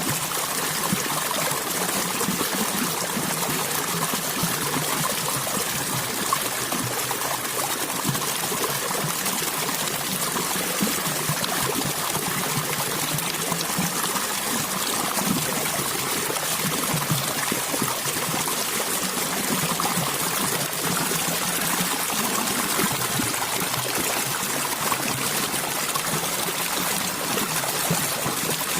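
Water flowing and trickling steadily, a continuous splashing rush like a small stream.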